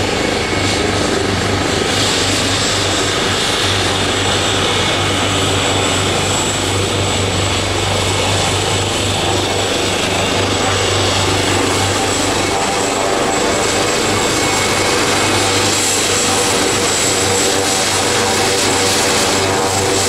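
Leonardo AW139 helicopter's twin turboshaft engines and main rotor running steadily while taxiing, with a thin steady high whine over the rotor noise.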